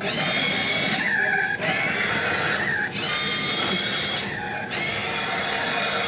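Remote control toy car's small electric motor whining, speeding up and slowing down in spurts of a second or so as it is driven.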